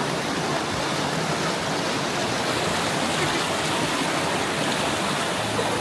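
Strongly flowing water rushing steadily, an even, unbroken noise.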